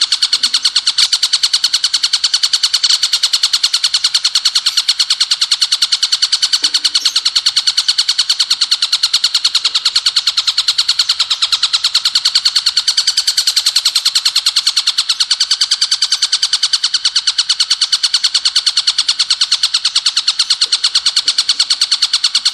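Ciblek gunung (mountain prinia) song in the rapid 'bren' style: a continuous, fast, evenly spaced rattle of high notes that runs on without a break.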